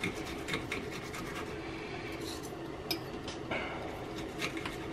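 Knife and fork scraping and clicking against a plate while cutting a steak: a handful of short, sharp clicks and scrapes, irregularly spaced, over a steady low hum.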